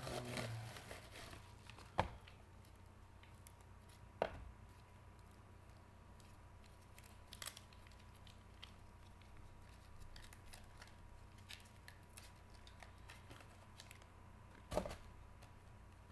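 Trading cards in plastic sleeves and holders being handled: quiet rustling and crinkling of plastic, with a few sharp clicks as cards and holders knock together. A faint steady high tone runs underneath.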